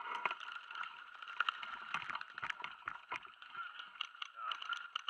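Paintball markers firing in rapid, irregular volleys, with many sharp pops as paintballs fly in and hit close by.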